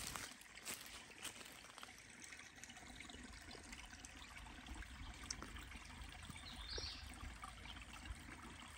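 Small creek trickling and flowing over rocks, faint and steady. There are a few sharp knocks in the first second and a half.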